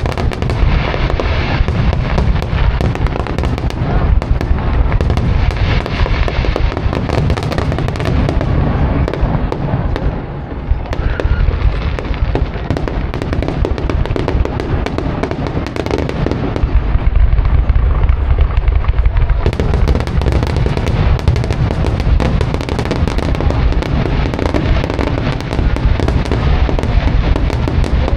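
Fireworks finale: a dense, unbroken barrage of shell bursts and crackle over heavy low booms, thinning briefly about ten seconds in.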